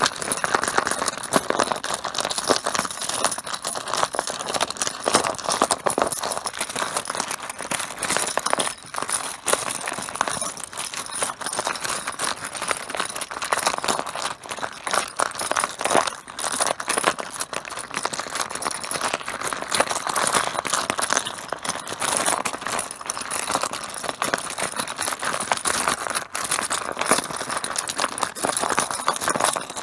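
Mahjong tiles clattering and clicking against one another, a dense, unbroken rattle of many small hard knocks.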